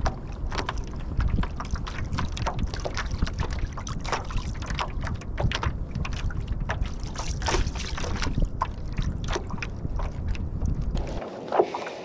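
Wind buffeting the microphone in a heavy low rumble, over many irregular ticks and knocks from the kayak and the fishing gear being handled. The rumble cuts off suddenly about eleven seconds in.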